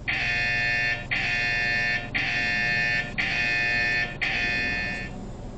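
GoCar driver app's new-order alert ringing on a phone: five repeated electronic tones, each about a second long, stopping about five seconds in. It signals an incoming ride request.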